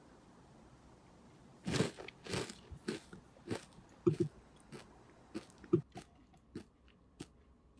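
Someone biting into and chewing crunchy stir-fried cabbage: crisp crunches start about two seconds in and come roughly every half second, fading near the end.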